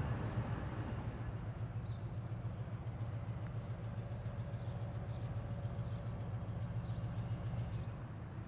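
Steady low rumble of a distant EMD SW900 diesel switcher locomotive running as it approaches, with a few faint bird chirps.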